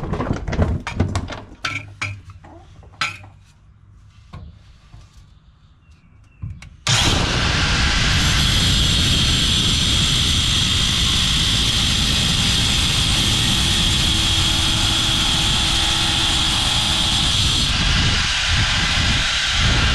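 A few knocks and clatters, then about seven seconds in a metal grinder starts abruptly and runs steadily with a high whine, grinding at the exhaust studs on the catalytic converter flange. Its high whine thins out near the end while it keeps running.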